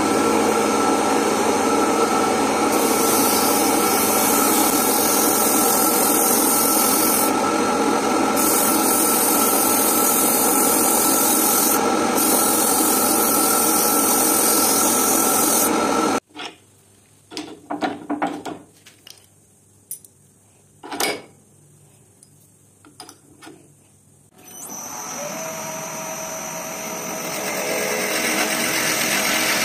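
Wood lathe running with a walnut blank spinning, abrasive hissing against it in long strokes. The lathe stops suddenly about sixteen seconds in, leaving a few scattered clicks and knocks. It starts up again near the end, as a Forstner bit in the tailstock drill chuck is brought to the end grain.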